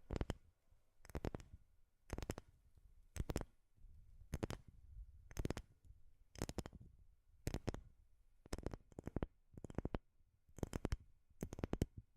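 Tapping on wood: short clusters of two or three quick taps, repeating about once a second.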